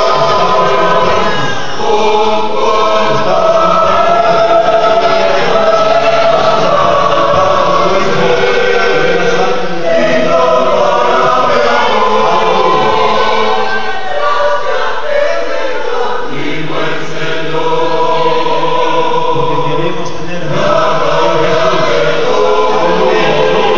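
Mixed choir of women's and men's voices singing a hymn in harmony, phrase after phrase with short breaths between lines.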